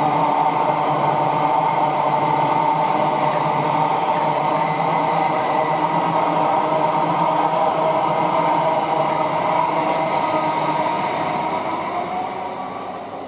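South Western Railway Class 701 Arterio electric multiple unit passing through the station: a steady rumble of wheels on rail with a steady whine over it. It fades near the end.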